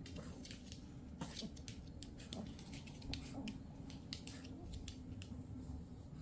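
Pomeranian snoring in its sleep: soft low snuffling breaths, with a run of many small sharp clicks through the middle.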